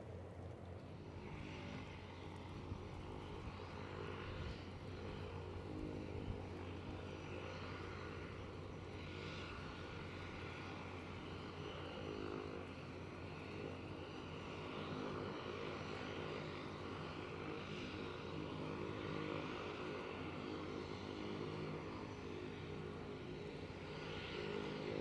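De Havilland Canada DHC-3 Otter floatplane's engine and propeller running steadily at low power while it taxis on the water, a continuous hum made of several held tones.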